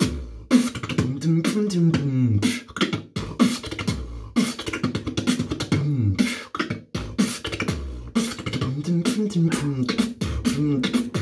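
Beatboxing an electronic dance beat with only the mouth: fast, sharp kick and snare clicks over a pitched vocal bass line that sweeps up and down in pitch.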